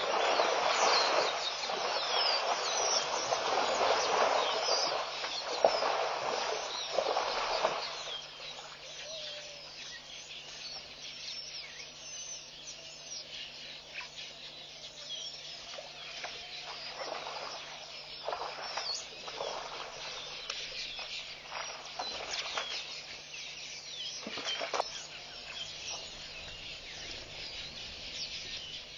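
An African elephant sloshing and squelching through the mud and shallow water of a waterhole, loudest for the first several seconds. Then the sloshing dies down, leaving birds chirping and calling.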